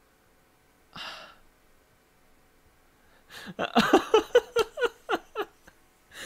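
A person's exasperated sigh, then a couple of seconds of laughter in short repeated bursts.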